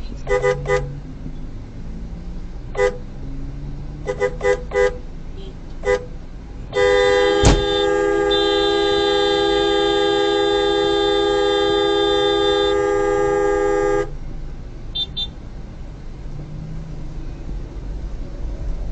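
Car horn honking: a few short toots, then held in one long blast of about seven seconds, with a sharp knock partway through the blast. Low traffic rumble underneath.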